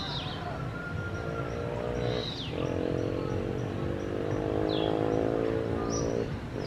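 Saddleback tamarins giving about four short, high-pitched calls that sweep down in pitch. Under them is a steady motor hum, from about a second in until near the end.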